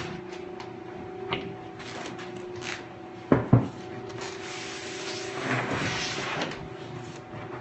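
Knocks, clicks and rubbing as the sanding belt is changed on a large belt sander, with two sharp knocks about three and a half seconds in. A steady low hum runs underneath.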